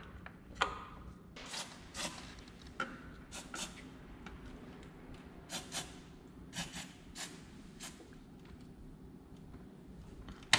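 Hands and tools working in a car's engine bay as parts are fitted onto the engine: irregular light clicks and knocks of metal and plastic, with some scraping.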